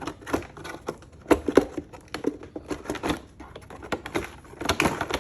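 Irregular plastic clicks and knocks as a Can-Am Ryker's plastic fuel door and trim panel are pulled up and worked loose from their mounts.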